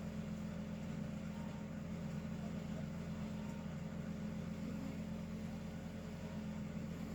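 Steady low hum with no change in level; no snoring is heard.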